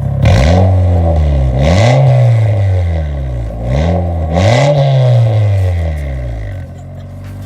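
Honda Civic's D16Y8 four-cylinder engine revved hard several times, its pitch climbing and dropping in two pairs of quick blips, then falling back toward idle near the end.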